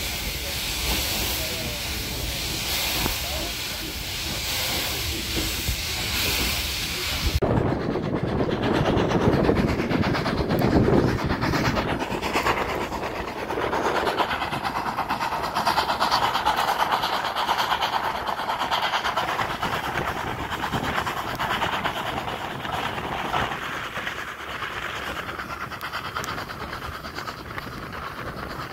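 Steam hissing in pulses around a steam-hauled railway carriage on the move. About seven seconds in the hiss cuts off suddenly. The carriage's running noise takes over, with wheels clicking over the rail joints.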